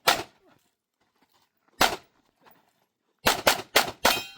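Pistol shots fired in a USPSA course of fire: one shot, a pause of nearly two seconds, another shot, then a quick string of four shots about a quarter second apart near the end.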